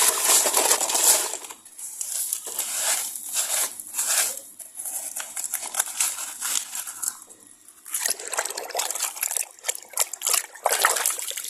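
Hands digging through sand, with sand scraping, shifting and pouring off in irregular rustling bursts as a buried toy vehicle is unearthed.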